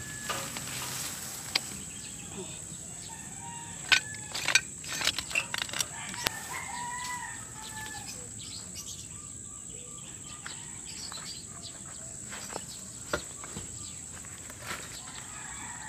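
Chickens in the neighbourhood, a rooster crowing and hens clucking, with scattered sharp clicks and rustles of leaves and twigs, thickest about four to six seconds in, as someone moves through the weeds. A faint steady high tone sits underneath.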